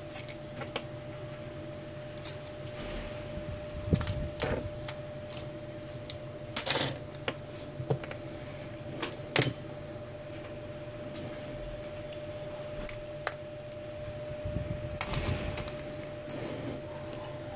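Small clicks, taps and light metallic clinks of smartphone parts (mainboard, plastic frame, metal brackets) being handled and set down on a rubber work mat, with two sharper clicks about seven and nine seconds in, over a steady faint hum.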